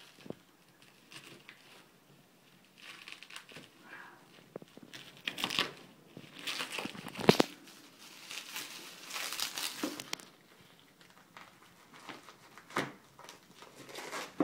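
Bubble wrap and plastic packaging crinkling and tearing in irregular bursts as it is cut open and pulled off a boxed model kit, with a sharp snap about seven seconds in.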